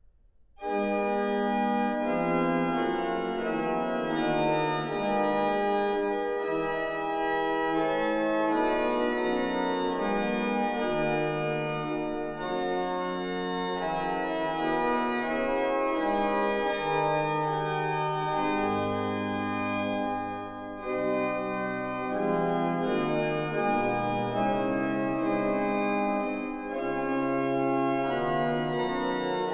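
Historic 1727 Müller pipe organ playing a slow hymn-tune chorale in full sustained chords over a moving bass line. It enters about half a second in and goes in phrases, with brief breaths between them about every six seconds.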